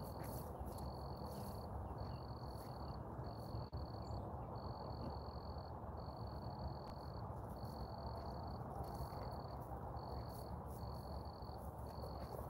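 Cricket trilling in a steady series of high, even pulses, each about half a second to a second long with short breaks between, over a low steady rumble of outdoor background noise.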